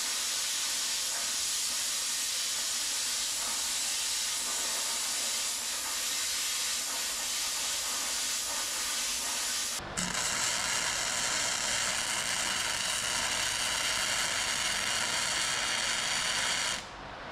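Plasma cutter hissing steadily as it cuts steel plate. About ten seconds in it breaks off and a flux-core welding arc takes over, crackling and hissing until it stops shortly before the end.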